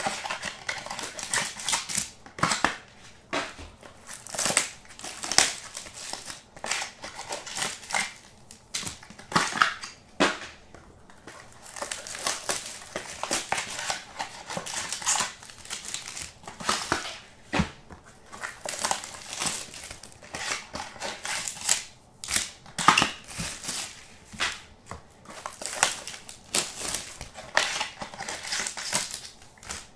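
Trading-card box wrapping and packs crinkling and rustling as hands tear them open, in irregular bursts throughout.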